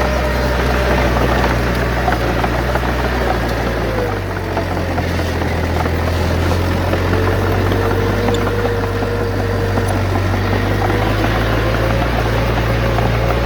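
Bulldozer's heavy diesel engine running steadily, its note dropping about four seconds in and rising again near the end, with a wavering whine above the engine drone.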